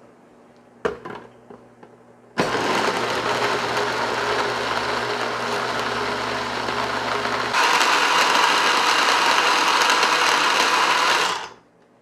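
Countertop blender pureeing a thick mix of steamed kabocha squash, potato, onion and corn in soy milk: a short knock, then the motor starts about two seconds in and runs steadily, gets louder and brighter about halfway through, and stops suddenly near the end.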